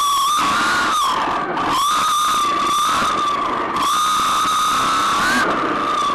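RC car's motor and drivetrain whining at speed on a fast lap, the high whine dropping briefly about a second and a half in and again near four seconds as the throttle is lifted, then falling off near the end. A hiss of tyres and wind runs under it.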